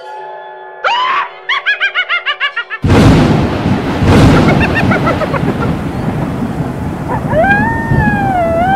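Halloween sound effects: a rising shriek about a second in and a rapid run of cackling, cut off by a sudden loud thunderclap. Rolling thunder and steady rain follow, with a long wavering howl near the end.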